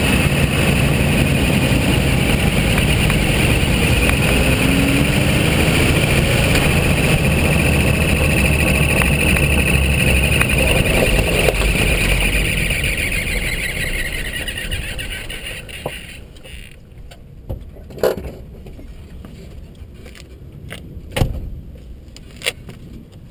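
2005 Jeep Wrangler Unlimited Rubicon coasting with the engine off: tyre and drivetrain noise with a high whine that drops in pitch as it slows, dying away as it rolls to a stop, while the owner listens for a chirp from the drivetrain. A few sharp clicks near the end.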